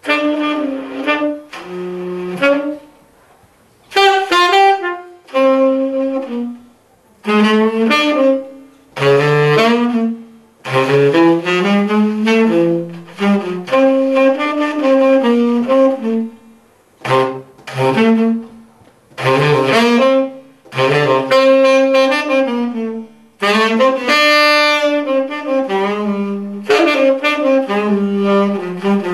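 Saxophone playing a melody in short phrases of one to three seconds, with brief pauses between them.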